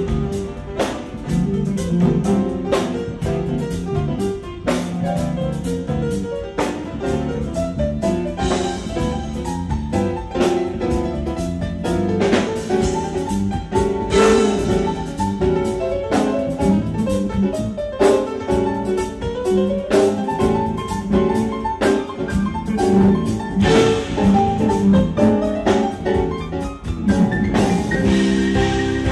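A rock band playing an instrumental passage without vocals: a drum kit keeping a steady, fast beat under pitched instrument notes.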